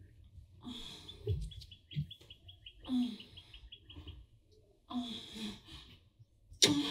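A bird chirping outside in a quick run of short high notes, about five a second, for some three seconds. A loud clunk comes near the end.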